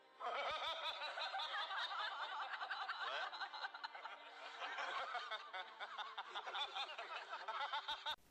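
Men laughing hard, a long run of snickering and chuckling with several voices overlapping, cut off abruptly near the end.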